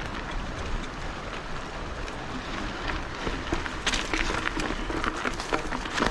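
Mountain bike rolling along a dirt bush track: steady tyre noise and a low rumble, with scattered clicks and rattles that come more often in the second half.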